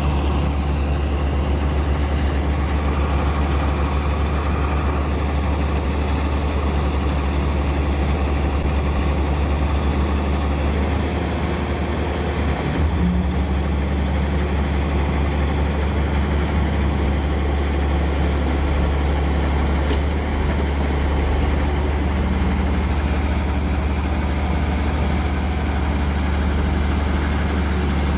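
Logging truck's diesel engine running steadily with a deep, even drone, with a brief bump in the sound about halfway through.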